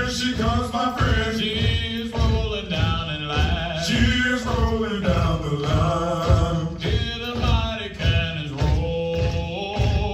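Marine Corps marching cadence: male voices chant a military cadence in rhythm over a steady, evenly pulsing low beat.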